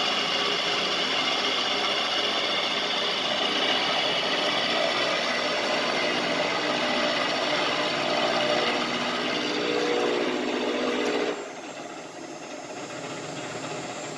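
LeeJay CNC mill circle-milling mild steel, a light cut at about 900 RPM: a steady cutting and spindle sound that drops suddenly about eleven seconds in, leaving the quieter steady running of the machine.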